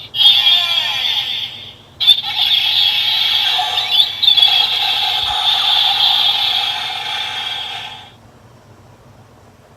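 Transformation sound effect played through the small speaker of a Bandai DX Kamen Rider Build driver toy belt: a harsh, screeching electronic effect, a short burst and then a longer stretch that fades out about eight seconds in.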